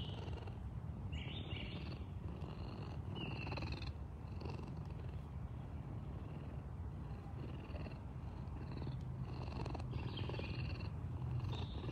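A bobcat purring steadily, a continuous low rumble, with birds chirping now and then in the background.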